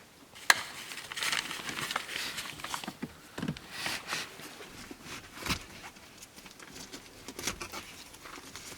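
Handling noise from an infant car seat being installed: scattered rustling, light plastic clicks and knocks.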